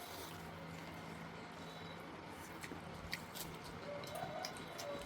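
Faint eating sounds: chewing and lip smacks with scattered small clicks.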